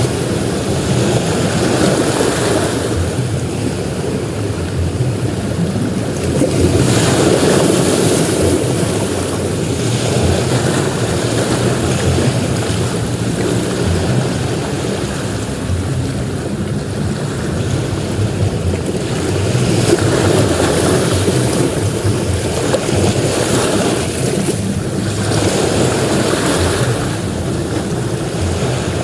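Ocean surf breaking on a beach: a continuous wash of waves that swells and eases every few seconds as each wave breaks and runs up the sand.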